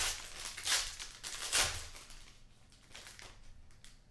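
Foil card pack wrapper crinkling as it is torn open and handled, three loud rustles in the first two seconds, then fainter rustling.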